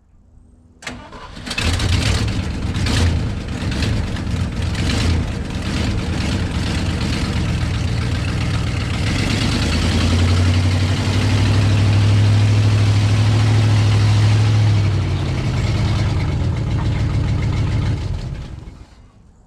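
A 1978 Ford F600's 391 V8 gas engine cranks with the key and catches about a second and a half in. It runs unevenly at first, then settles into a steady, louder run. The engine sound falls away and fades out near the end.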